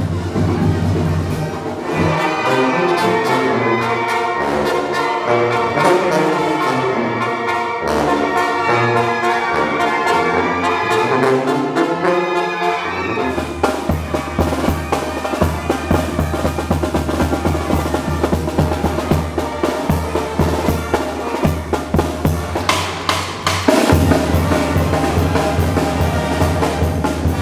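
Mexican banda music: trumpets and trombones over a bass drum beaten with a mallet. The music changes character a couple of seconds in, again about halfway through, and once more near the end.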